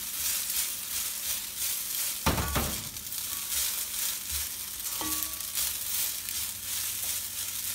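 Oiled boiled spaghetti sizzling in a hot wok as it is stirred and tossed, with a steady frying hiss. A dull knock comes about two seconds in and a short ringing clink about five seconds in.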